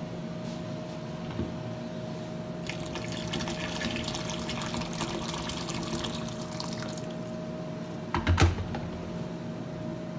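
Boiling water poured from a kettle into a stainless steel sink over a plastic basket muzzle, splashing on the steel for about four seconds from roughly three seconds in. A couple of loud knocks follow about eight seconds in, over a steady low hum.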